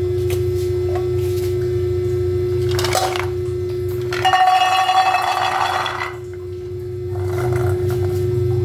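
Chopped pieces tipped from a clear bowl into a stainless-steel saucepan, about four seconds in: a rush lasting under two seconds with the metal pan ringing, after a brief clink. A steady hum runs underneath.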